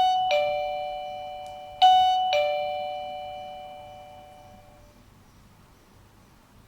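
Wireless doorbell chime playing a two-note ding-dong, high note then low, twice; the notes ring on and fade away over a few seconds.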